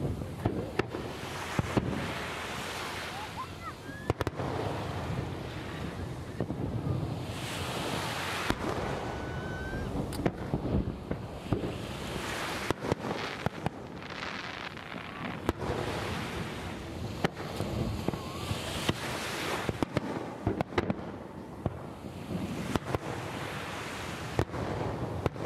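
Aerial firework shells launching and bursting: an irregular run of sharp bangs, at times several a second, over a steady rushing noise, with a few short whistling glides.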